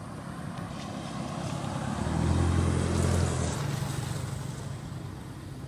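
A motor vehicle driving past on the road, its engine and tyre noise swelling to a peak about two and a half seconds in, then fading away.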